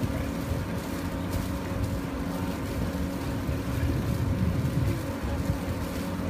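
A boat's engine running steadily, a constant hum under an uneven low rumble of wind on the microphone that grows stronger about two-thirds of the way through.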